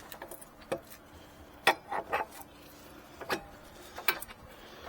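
Sharp, scattered clinks and knocks of metal suspension parts being handled as the front hub and steering knuckle are swung out to take the new axle shaft, about six in all, the loudest about a second and a half in.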